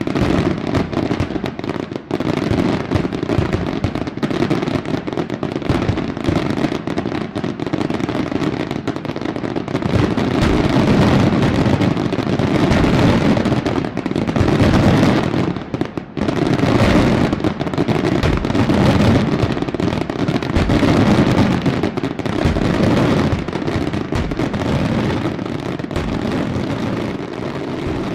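Fireworks display in a dense, continuous barrage: aerial shells bursting one on top of another with crackling, the booms running together without a break. It grows louder about ten seconds in, with one brief dip about sixteen seconds in.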